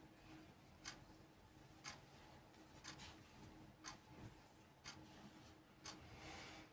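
Faint, even ticking, one tick each second, over a low steady hum.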